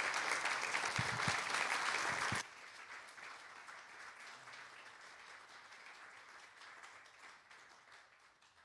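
Congregation applauding. The clapping is loud for about two and a half seconds, then drops abruptly to a much fainter level and fades away near the end.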